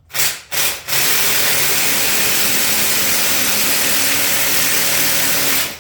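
Power tool run in two quick blips, then a steady hissing run of about five seconds that cuts off suddenly, driving an 8 mm bolt on the ATV until it is tight.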